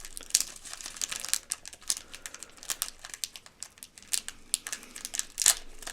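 Plastic snack wrapper being torn open and handled, an irregular run of crinkling and crackling with a louder crackle about five and a half seconds in.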